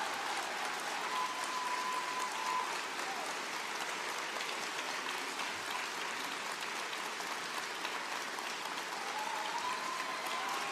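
Audience applauding steadily, a dense even clapping that carries on without a break.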